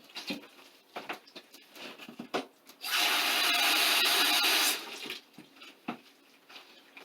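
Water poured into a bucket of popcorn ceiling texture mix: a steady rush of pouring water lasting just under two seconds, about three seconds in. Light knocks and rustles of handling come before and after it.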